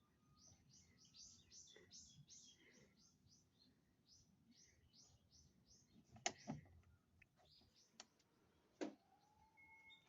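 Faint bird chirping: a quick run of short, high, repeated notes, about five a second, that fades after about five seconds. It is followed by a few sharp knocks and a faint steady tone near the end.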